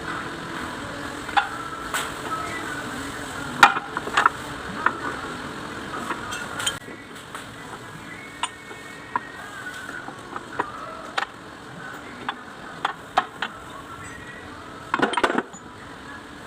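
Light metallic clinks and taps of tools and metal parts being handled, with a short quick run of knocks near the end.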